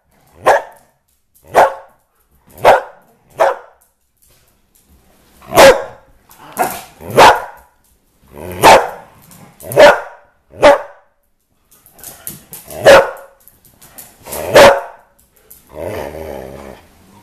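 A dog barking in play at a squeaky toy: about a dozen single loud barks, roughly one a second, with a short pause after the first four. Near the end comes a longer, lower growl.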